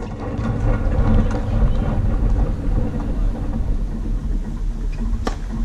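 A low, steady engine rumble, strongest in the first half and slowly fading, with one sharp knock near the end.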